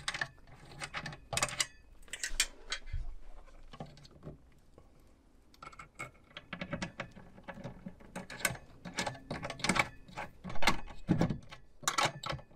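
Handling noise of a heavy cable being fitted to a screw terminal on a DC-DC battery charger: irregular small clicks, scrapes and rattles of metal and plastic, with a few sharper knocks near the end.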